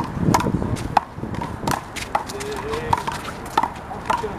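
Big blue rubber handball in a one-wall rally: a string of irregular sharp smacks, each with a brief hollow ring, as it is slapped by hand and bounces off the wall and court, with voices in the background.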